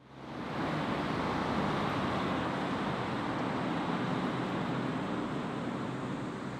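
Steady rushing background noise with a low hum underneath, fading in over the first half second and then holding level.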